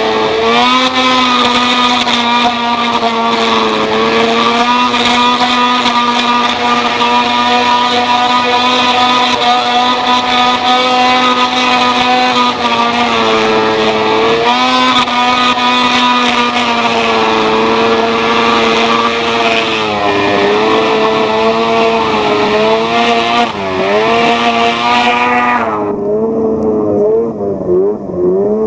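Snowmobile engine running at high, steady revs while skimming across open water, dipping briefly in pitch a few times. About 26 seconds in the revs fall and the sound loses its hiss as the sled slows.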